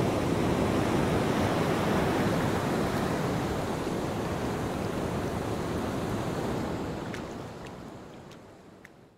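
Steady rush of sea water and waves at the surface, fading out over the last two seconds, with a few faint clicks near the end.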